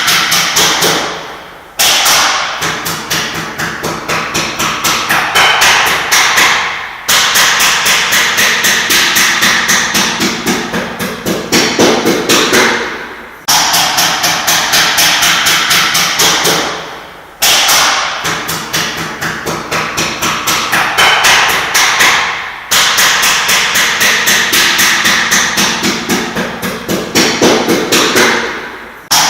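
Hammer striking rapidly at several blows a second, in runs of about four to six seconds broken by short pauses. The blows are loudest at the start of each run.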